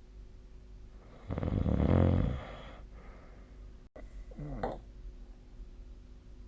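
A sleeper snoring: one loud, rough snore lasting about a second, starting about a second and a half in, then a short squeaky sound with falling pitch near the middle.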